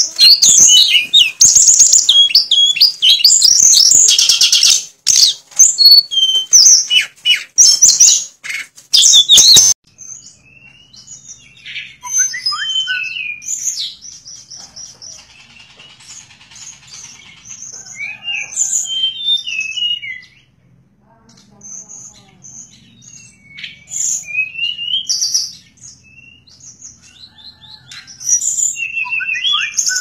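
Caged tledekan (a blue flycatcher) singing a loud, fast, unbroken run of varied high whistled notes that cuts off abruptly about ten seconds in. After that the song comes in quieter separate phrases with pauses between them.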